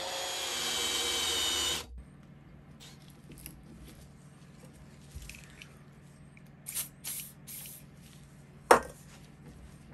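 Mini lathe running, drilling a 14 mm hole in a steel block, with a steady whine; it cuts off abruptly about two seconds in. A low steady hum follows, with a few light scrapes and clicks as the hole is hand-tapped with a tap wrench, and one sharp knock near the end that is the loudest sound.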